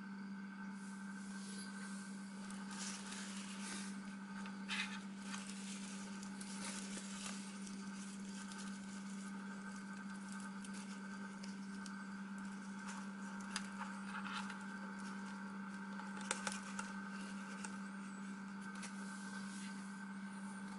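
Light rustling and small clicks of hands handling a small LiPo battery and its charging leads and connectors on a plastic sheet, a few sharper clicks standing out, over a steady low electrical hum.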